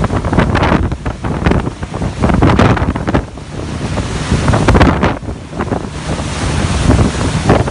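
Strong gusting storm wind buffeting the microphone: a loud, rushing noise that swells and drops every second or so.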